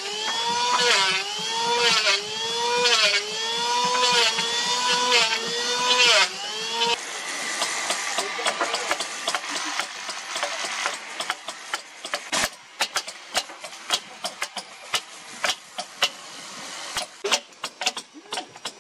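Electric hand planer cutting along a timber plank in repeated passes, its motor pitch sagging under load and recovering about once a second. After about seven seconds it stops, and in the second half come many sharp, irregular taps of hammers striking chisels into boat timber.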